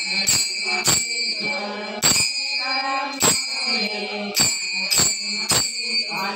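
Devotional bhajan music: small brass hand cymbals struck on a steady beat, about every half second to second, each strike ringing on, with voices chanting a melody between the strikes.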